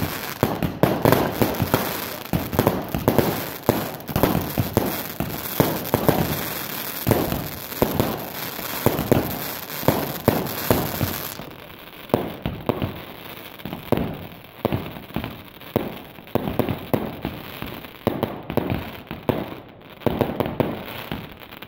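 Fireworks going off: a dense, irregular run of bangs and crackles, thinning after about eleven seconds into separate bangs roughly a second apart.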